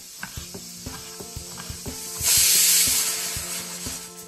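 Kitchen knife chopping a tomato on a wooden cutting board, knocking about three times a second. About two seconds in a loud hiss starts suddenly and fades away over the next two seconds.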